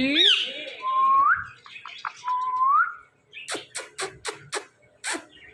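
Indian ringneck parrot giving two short rising whistles, followed by a quick run of about six sharp clicks.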